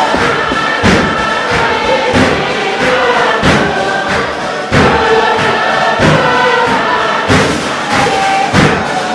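Tuvaluan fatele: a large group singing in chorus over a beat of strikes on a wooden box that recurs through the song.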